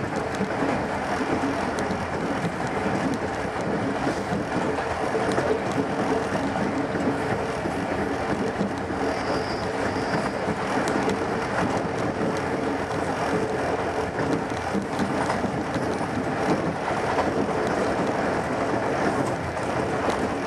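A train running along the track: a steady, unbroken noise of the moving carriage with a steady hum underneath.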